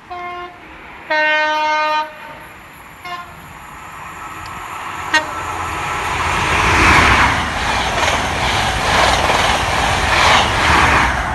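Two-tone horn of a Class 43 HST power car: a short higher note, then a longer lower note, and a brief blip about three seconds in. The noise of the train then builds steadily as it approaches and passes at speed, loudest near the end.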